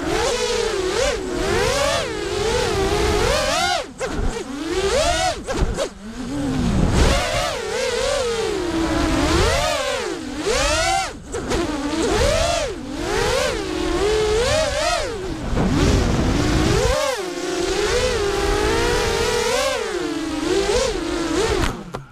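Electric motors and propellers of a small FPV racing quadcopter whining in flight, heard from its onboard camera, the pitch rising and falling constantly with the throttle. Right at the end the sound cuts off suddenly as the quad comes down hard in the grass.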